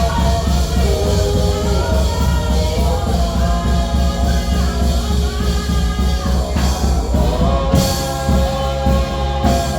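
Choir singing with a live band: held, moving vocal lines over a heavy bass and drums, with a couple of sharp hits near the end.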